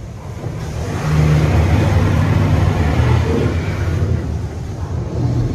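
Touch-free PDQ LaserWash 360 Plus car wash spraying water onto the car, heard from inside the car: a loud, steady hiss over a deep rumble, growing louder about a second in.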